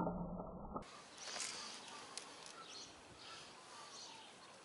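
Faint bird chirps: a few short, high calls roughly a second apart over a quiet outdoor background. A single sharp click right at the start.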